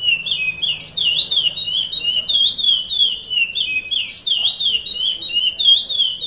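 Curió (chestnut-bellied seed finch) singing the Paracambi 'rompe nuvem' song: an unbroken run of quick, clear whistled notes sweeping up and down.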